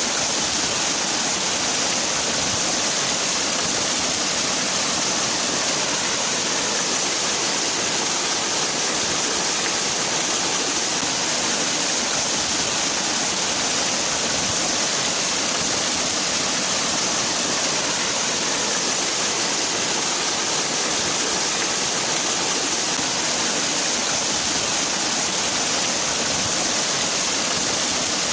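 Waterfall: water falling and splashing steadily, a continuous rushing hiss with no breaks or changes.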